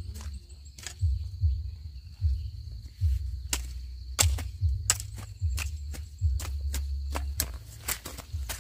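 Irregular sharp knocks and dull thuds, several seconds of them, over a steady high insect drone.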